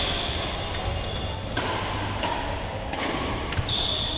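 Badminton rally: a shuttlecock being struck back and forth with rackets, several sharp hits about a second apart with hall reverberation, the loudest a little over a second in. A high steady tone lingers for about a second after that hit.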